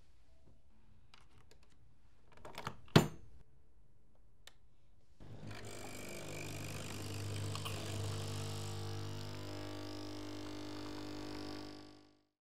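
Capsule coffee machine: a few clicks and one sharp clack as the capsule is loaded, then about two seconds later the pump starts with a steady buzzing hum and runs while the coffee pours, fading out near the end.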